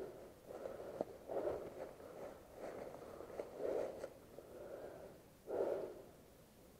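Soft rustling and scuffing about once a second, with a sharp click about a second in, from a player moving on foot with gear.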